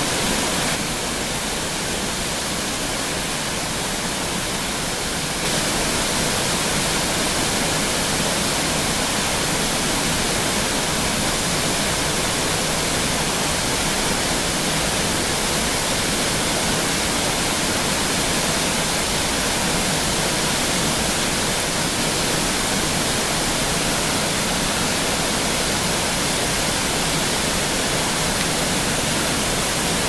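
Sengataki waterfall plunging into its pool: a steady, loud rush of falling water, a little quieter for a few seconds near the start.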